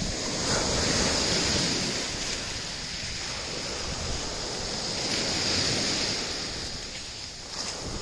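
Small sea waves breaking and washing up a pebble beach, the surf swelling twice and easing back between.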